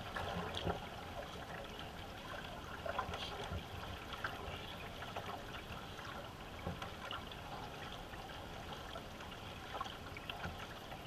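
Water trickling and splashing around a canoe under way, with paddle strokes dipping in at uneven intervals.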